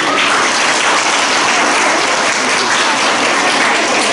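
An audience applauding, steady many-handed clapping that holds evenly throughout.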